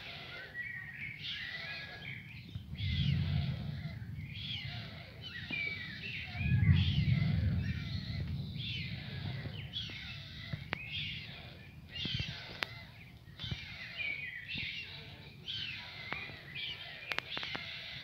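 Low rumbles of distant thunder, twice: one a few seconds in, then a louder, longer one a little later. Through them a songbird sings short, repeated high phrases about once a second.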